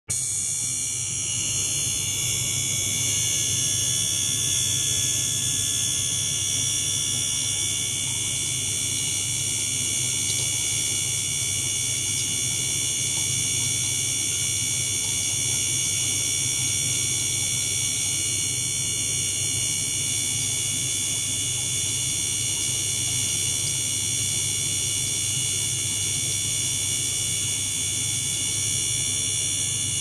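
Ultrasonic water-tank rig with a small liquid-circulation pump running: a steady high-pitched whine of several tones over a low, even hum.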